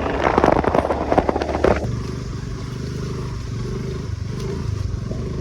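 Motor scooter riding over a rough, unpaved road: rattling and scraping over a running engine for the first couple of seconds, then an abrupt change to a steady, low engine drone.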